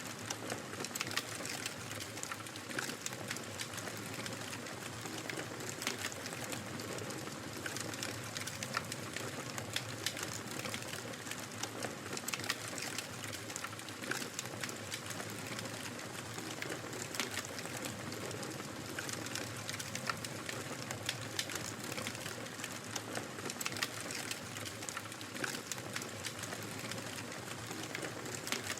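Wood fire crackling: irregular sharp pops and snaps over a steady soft hiss.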